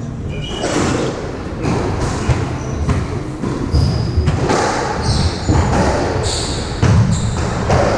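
Squash rally on a wooden court: repeated sharp knocks of the ball off rackets and walls, with shoes squeaking and thudding on the floor as the players scramble. Near the middle one player falls heavily to the court.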